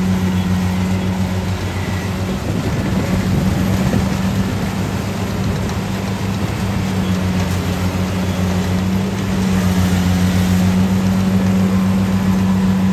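Rice combine harvester engine running, a steady low drone whose pitch wavers unevenly from about two to five seconds in before settling, then growing a little louder near the end.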